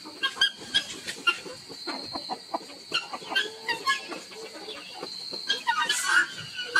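Animal calls: many short, irregular clucks and chirps over a faint steady high-pitched tone.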